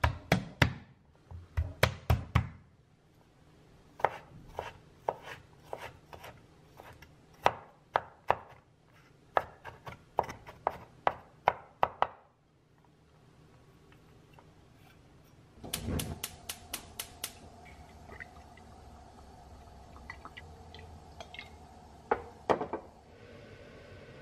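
Chef's knife on a wooden cutting board: a few heavy knocks as garlic cloves are crushed under the blade, then steady chopping, about two strokes a second, as the garlic is minced. About 16 seconds in, a quick run of clicks gives way to a steady hum as a gas burner is lit under a cast-iron skillet, with a couple of knocks near the end.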